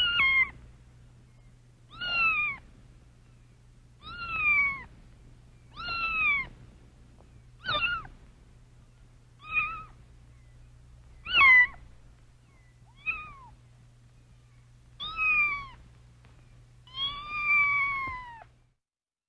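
A domestic cat meowing over and over, about ten meows spaced roughly two seconds apart. Each meow falls in pitch toward its end, and the last is the longest.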